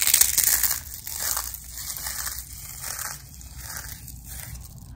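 Ruffles Double Crunch ridged potato chips crushed by hand and crumbled: a run of crunching and crackling, loudest at the start and getting fainter.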